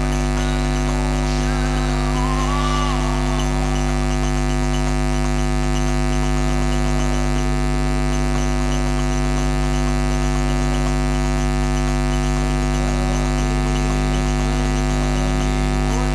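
Steady electrical mains hum and buzz through the sound system, loud and unbroken, with faint wavering tones drifting in during the first few seconds and again near the end.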